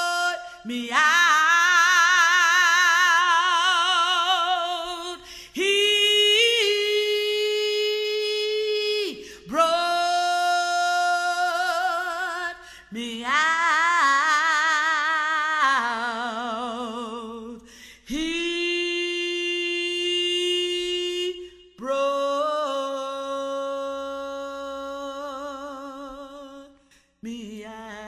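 A woman singing a gospel song unaccompanied, in long wordless held notes with wide vibrato, each a few seconds long with short breaths between.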